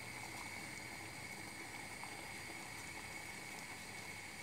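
Water simmering in a small cezve with walnut membranes in it: a faint, steady bubbling hiss with a few small ticks.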